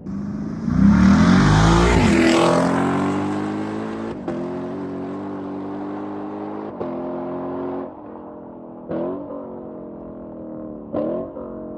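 Lexus LC 500's 5.0-litre V8 exhaust: a hard burst of acceleration about a second in, revs climbing sharply, then a steady drone whose pitch slowly falls, with two short throttle blips near the end.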